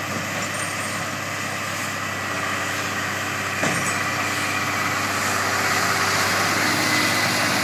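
Tractor engine running steadily while working a round baler in the field, getting somewhat louder from about halfway through.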